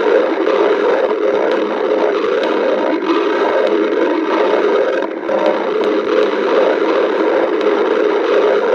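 A person's stomach growling, loud and steady, with a brief lull about five seconds in.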